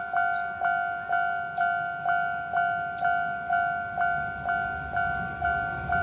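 Japanese railway level-crossing warning bell ringing steadily at about two strikes a second, each strike a two-tone ding that decays before the next. It signals that a train is approaching and the barriers are down.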